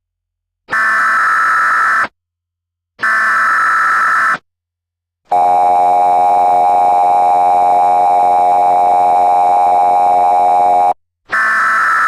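Emergency Alert System tones: two short bursts of digital header data about a second apart, then the long two-tone attention signal for about six seconds, then another data burst starting near the end.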